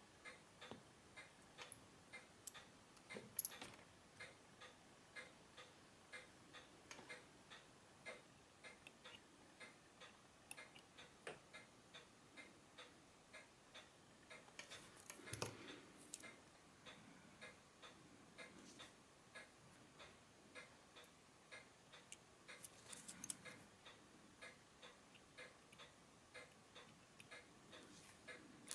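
Faint, steady ticking of a running mechanical pocket-watch movement (Unitas 6497). A few louder clicks and taps of watchmaker's tools on the metal come about 3 seconds in, midway, and again about two thirds of the way through.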